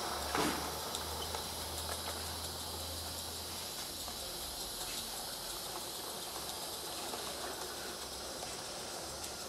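Live-steam garden-scale locomotive hissing steadily as it hauls a train of wagons, with faint ticks from the running gear. A short falling sound about half a second in is the loudest moment, and a low hum runs through the first four seconds.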